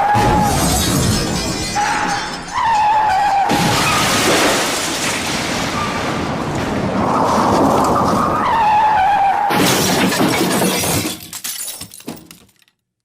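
A string of loud crash and shattering sound effects, cut one after another, with a wavering whine in places; the last one dies away near the end.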